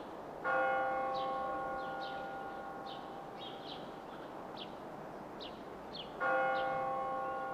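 A bell struck twice, about six seconds apart, each stroke ringing with several steady tones and slowly dying away. Short high chirps of small birds are heard throughout.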